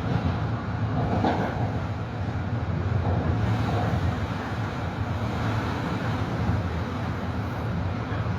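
Metro-North M3A electric multiple-unit train running, a steady low rumble of wheels and motors.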